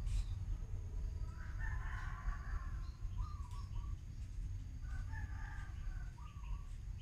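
A bird calling twice, each call about two seconds long and ending in a short wavering note, over a steady low rumble.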